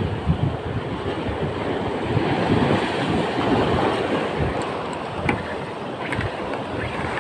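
Sea waves washing over and breaking against shoreline rocks, with wind buffeting the microphone. A few light clicks come near the end.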